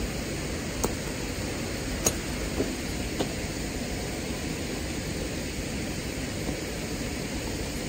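A steady rushing noise with a few light clicks and taps from hands working on the small engine of a wing mower, which is not running.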